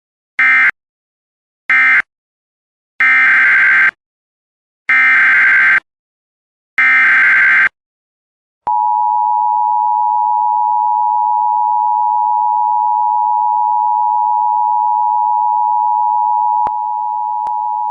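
Emergency Alert System signalling. First come two short screeching digital data bursts, the end-of-message code of the alert just finished. About three seconds in, three longer data bursts follow: the header of the next alert. From about nine seconds in, the steady two-tone EAS attention signal sounds, dropping a little in level near the end.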